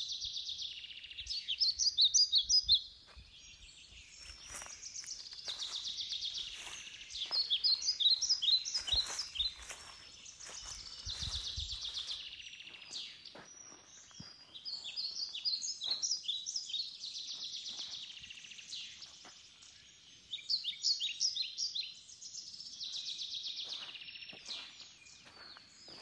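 A songbird singing the same short song over and over, about every five seconds: a hissy trill followed by a quick run of sharp, high chirps.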